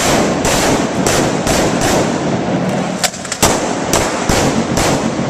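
Carbines firing on a range: a string of sharp, irregular shots, about one to two a second, with a heavy echoing wash between them.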